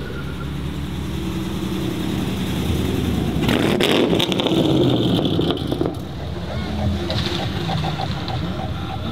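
Modified car engine accelerating hard past, loudest about three and a half to five and a half seconds in, with a burst of sharp crackles, then further engines revving with rising pitch.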